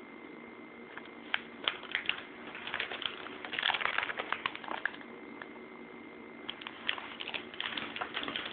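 Light clicks and crinkling as small squishy toys and their plastic are handled, picked up and set down, busiest in the middle and again near the end, over a faint steady hum.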